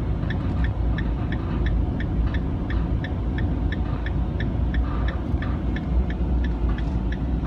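Steady, even ticking from a car's dashboard, about two and a half ticks a second, over the low rumble of the car driving.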